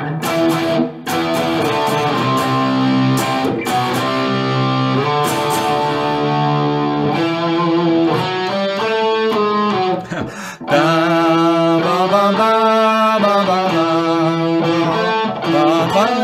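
Electric guitar playing a rock riff of power chords with slides. A brief break comes about ten seconds in, and the riff then goes on with shorter, quicker repeated chords.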